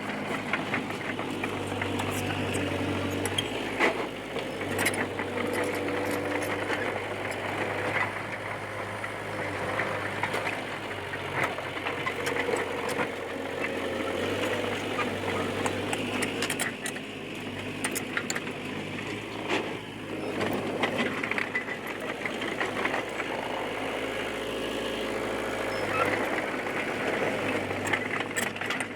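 D20P crawler bulldozer's diesel engine running under load, its note shifting up and down several times, with frequent metallic clanks and rattles.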